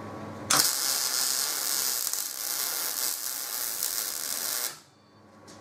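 Electric welding arc laying a tack weld on a motor mounting plate: a steady hiss that starts suddenly about half a second in and cuts off about four seconds later.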